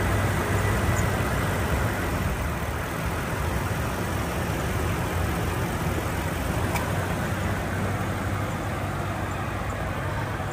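Toyota Tundra's 4.6-litre i-Force V8 idling steadily, heard from the open engine bay.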